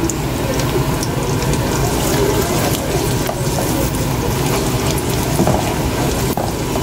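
Garlic cloves frying in hot oil in a wok, a steady sizzle, with a wooden spoon scraping now and then as it stirs them through the metal frying basket.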